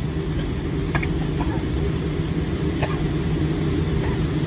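Steady cabin rumble of a Boeing 737-500 taxiing after landing, its engines running at low power, with a low hum under an even rushing noise. A couple of faint short sounds come from the cabin, about a second in and near three seconds.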